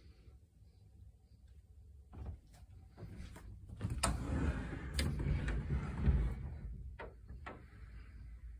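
A wooden closet door being moved and another closet opened: a string of clicks and knocks, with a louder rubbing noise of about two seconds in the middle, along with handling noise on the phone.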